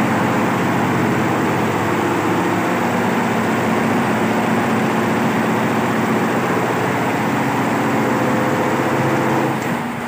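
A 23-head Allise computerized embroidery machine running steadily, its heads stitching a design. It gets somewhat quieter just before the end.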